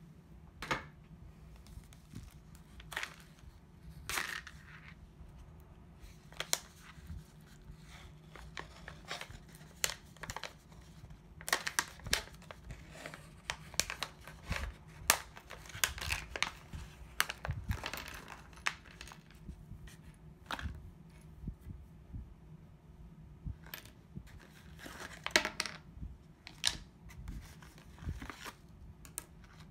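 A diamond-painting tool-kit pouch being handled and opened, crinkling and rustling, with small plastic tools clicking as they are set down on a wooden desktop. Short scattered clicks and rustles, busiest around the middle and again near the end.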